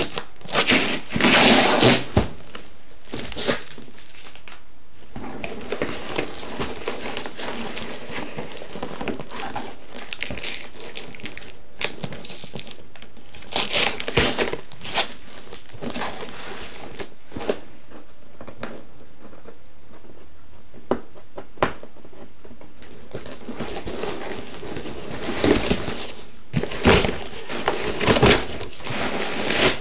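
A cardboard box being opened and unpacked by hand, its flaps and packing paper rustling and crinkling in irregular bursts. The bursts are loudest near the start, around the middle and near the end, with quieter handling between.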